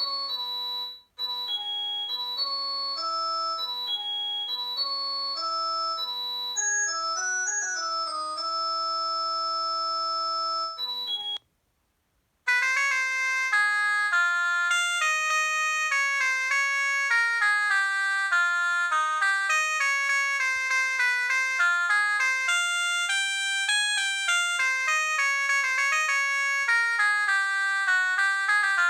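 Preloaded ringtones of a Huawei G7002 mobile phone: a synthesized keyboard-like melody ends on a long held chord about eleven seconds in. After a second of silence, a louder, busier tune starts.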